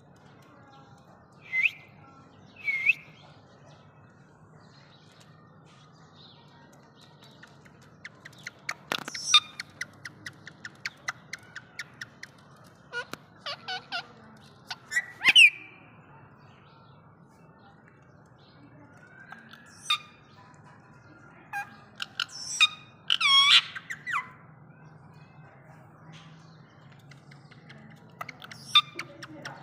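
Female Indian ringneck parakeet calling: short squawks and chirps that bend up and down in pitch, a rapid run of clicks partway through, and a longer wavering call in the second half, with quiet gaps between.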